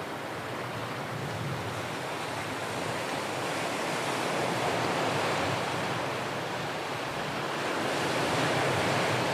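Ocean surf washing on the shore, a steady rush that swells gently about halfway through and again near the end.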